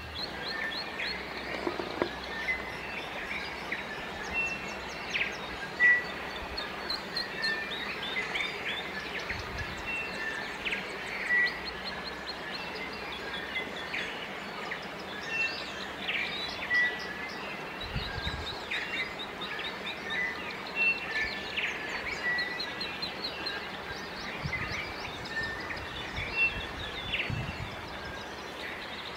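Several birds chirping and calling, with many short repeated notes and trills, over a steady rushing background noise.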